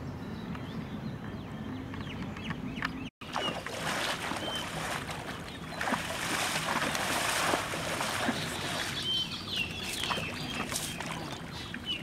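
Pond water splashing and sloshing as several people wade through it dragging a seine net, loudest in the middle, after a brief dropout about three seconds in. Short high bird chirps come and go throughout.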